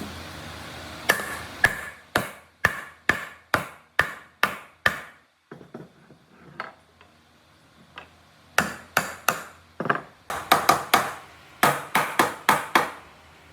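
Hammer strikes on wood, about two a second, in two runs separated by a pause of a few seconds; the second run is faster.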